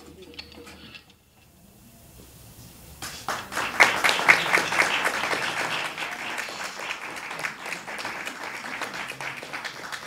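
Guitar music ends about a second in; after a short pause, an audience starts applauding about three seconds in, loudest at first and then steady.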